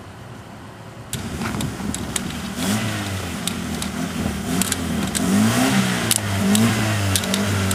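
Car engine revving in uneven surges, starting suddenly about a second in, with scattered sharp clicks and knocks. The car has crashed nose-first into a tree.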